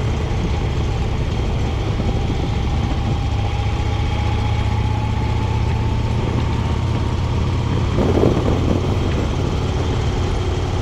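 Motorcycle engine running steadily at road speed through curves, with wind rushing over the microphone. A faint whine slowly falls in pitch, and there is a brief louder patch about eight seconds in.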